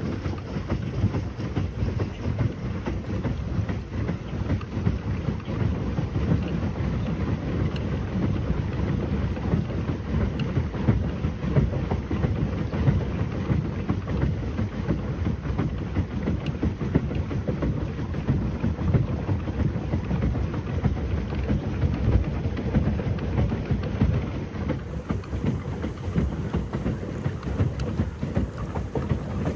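Wind buffeting the microphone out on the water, a dense low rumble with constant small gusts and swells.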